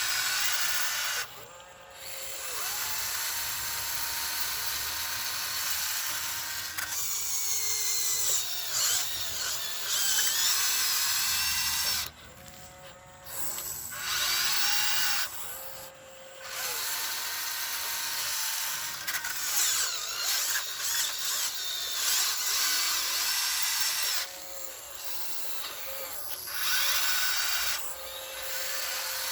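Huina 1599 RC excavator's small electric motors and gearboxes whining in repeated bursts as it is worked, stopping and starting every few seconds, the pitch rising and falling with each movement.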